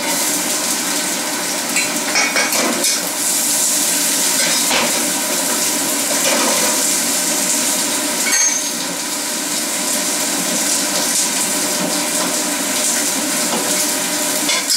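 Sliced onion sizzling in hot oil in a wok, stirred with a ladle that now and then scrapes and knocks against the pan.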